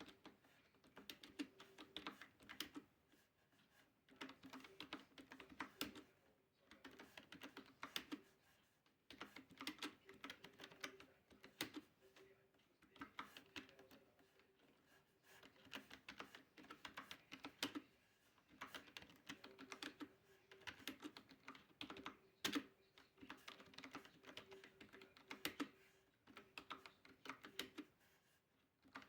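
Typing on a Qilive membrane keyboard: quiet, quick keystrokes in irregular runs of a second or two, broken by short pauses.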